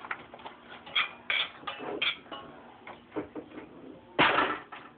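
Scattered clicks and knocks from a stainless saucepan on an electric coil stove being handled while flour goes into melted butter for a roux. A louder, noisy rustle comes about four seconds in.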